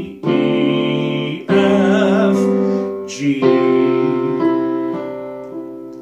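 Electronic keyboard playing sustained piano-tone chords: three chords struck at the start, about 1.5 seconds in and about 3.3 seconds in, each ringing on and fading away near the end.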